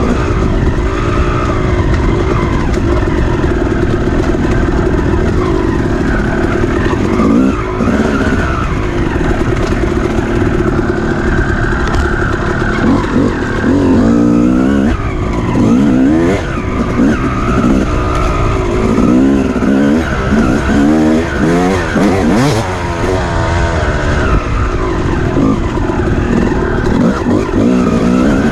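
Off-road dirt bike engine under race throttle, its pitch rising and falling over and over as it revs and shifts, over a steady low rumble.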